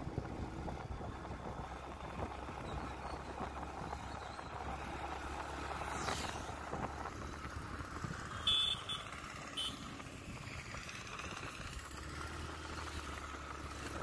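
Moving road vehicle running along a paved road, a steady low engine hum under road and wind noise. There is a brief falling whoosh about six seconds in, and a few short high beeps a little after the middle.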